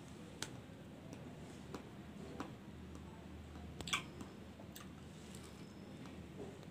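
A person biting and chewing soft, ripe papaya: faint, scattered wet mouth clicks, the loudest about four seconds in.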